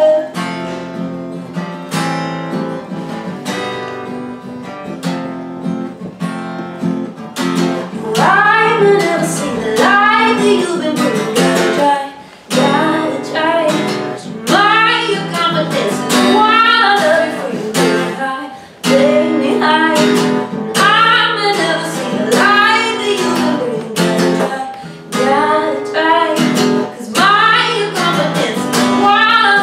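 A woman singing to her own strummed acoustic guitar. The first several seconds are guitar alone; the singing comes in about seven seconds in and runs on in phrases over the chords.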